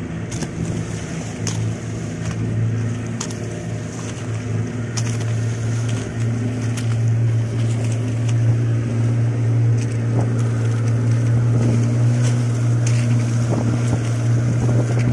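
Motor of a small outrigger fishing boat running steadily under way, with water rushing and splashing along the hull and outrigger floats. The engine hum grows a little louder over the first half, then holds steady.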